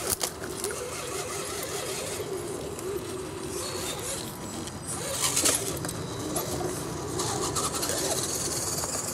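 Electric motor and gear drive of a radio-controlled scale crawler truck whining as it crawls through a concrete pipe, the pitch wavering with the throttle and loudest about five and a half seconds in.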